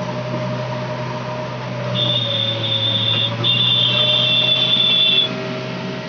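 JCB 3DX backhoe loader's diesel engine running steadily, heard from inside the cab. From about two seconds in, a loud high-pitched whine sounds over it twice with a short break, stopping about a second before the end.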